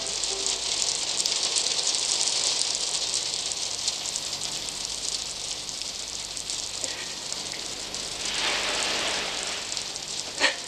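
A steady, even hiss like falling rain. There is a short sharp click about ten and a half seconds in.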